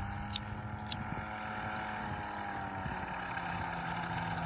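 Radio-controlled model airplane's engine running steadily at low throttle after touchdown, with a slight rise and fall in pitch.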